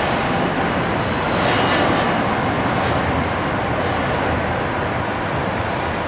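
Steady urban background noise, a constant dense rumble and hiss of city traffic, swelling slightly about a second and a half in.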